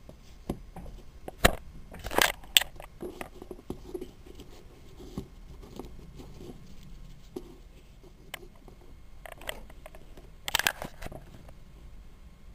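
Crackling and tapping of paper as hands turn and grip a 3D origami box built from folded paper units, with a few louder crunchy crackles between one and three seconds in and again about ten seconds in.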